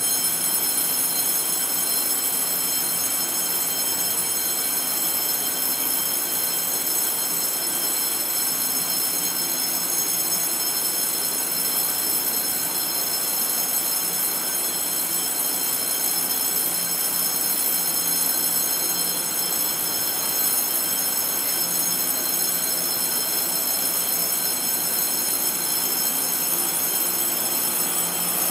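A steady high-pitched whine of several tones starts suddenly and holds throughout, over the low running noise of a Puyuma tilting electric train pulling slowly into the platform.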